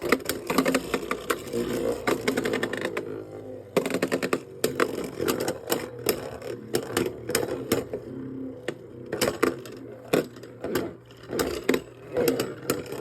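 Beyblade Burst spinning tops, one of them 3D-printed plastic, launched into a plastic stadium and battling: a sharp launch right at the start, then a steady whir of the spinning tops broken by many rapid clacks as they collide.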